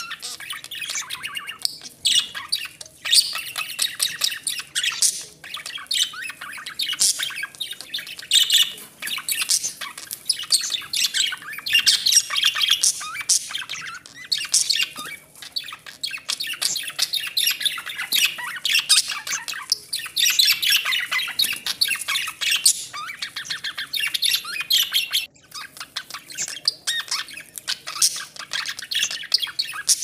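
Budgerigars chattering: a dense, unbroken stream of quick chirps, squawks and warbling.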